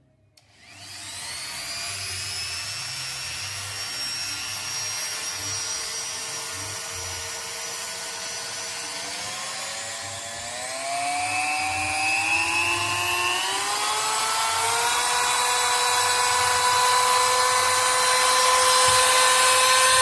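A handheld rotary tool's motor starts up and runs with a steady whine, then rises in pitch in several steps about halfway through and grows louder as its variable speed is turned up.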